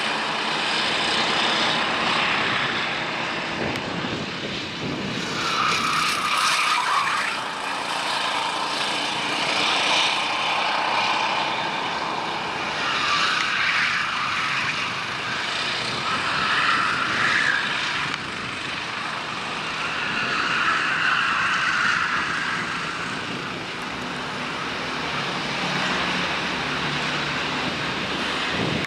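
Racing go-kart engines running at high revs, their buzzing pitch rising and falling several times as karts accelerate and pass.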